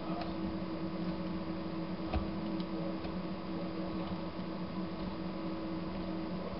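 Steady low mechanical hum with a few faint clicks: one just after the start and two a little after two seconds in.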